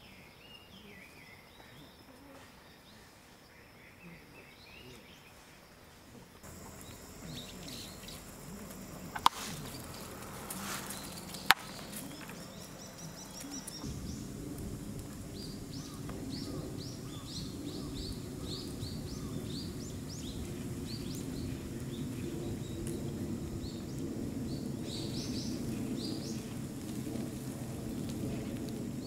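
Outdoor ambience with birds chirping on and off and a steady background noise that grows louder partway through. Two sharp clicks come about nine and eleven and a half seconds in.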